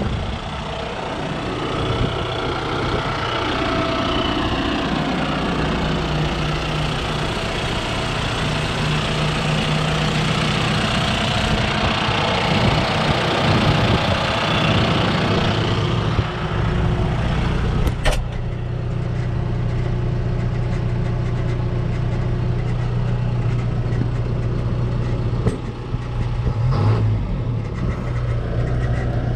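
John Deere 6115D tractor's four-cylinder turbo diesel running. It is rougher and shifting in pitch while the tractor is under way, then settles into a steady idle after a sharp click about two-thirds of the way in.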